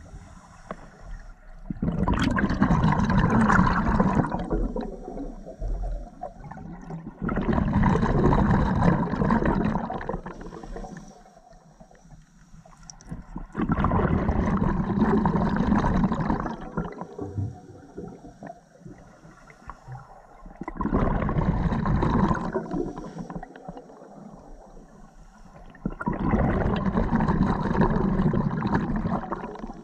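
Scuba diver's exhaled bubbles rushing and gurgling out of the regulator underwater: five long exhalations about six seconds apart, at a slow breathing rhythm, with quieter stretches between them.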